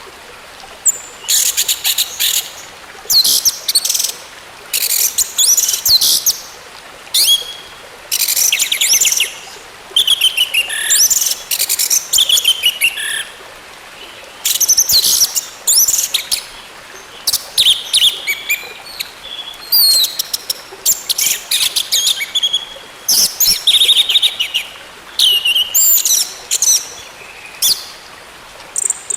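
Orange-headed thrush singing: a long run of short, varied phrases of high whistles and rapid trills, each about a second long with brief pauses between.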